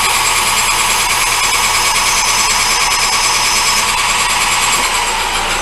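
Metal lathe running steadily with its motor whine and gear noise while taking a turning cut on a workpiece. Near the end, part of the sound stops and a tone slides lower as the lathe winds down.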